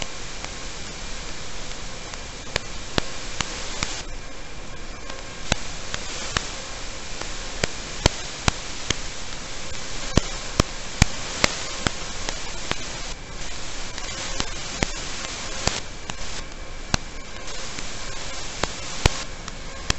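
Steady static hiss on the audio channel of an analog FPV video link, recorded by EV800D goggles, with many sharp clicks scattered through it and a faint steady hum underneath.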